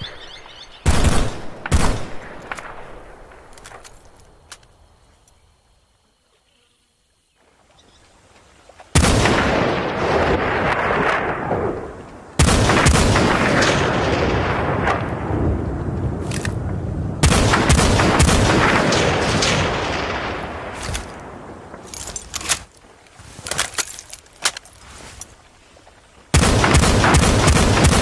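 Norinco NDM-86 sniper rifle gunshot sound effects: two single shots about one and two seconds in, each with a long echoing tail. From about nine seconds in come long stretches of loud, dense gunfire, then a few scattered clicks and shots, and near the end fast, closely spaced rapid fire.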